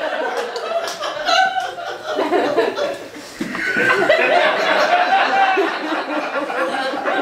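A crowd laughing, dipping briefly about three seconds in and swelling again.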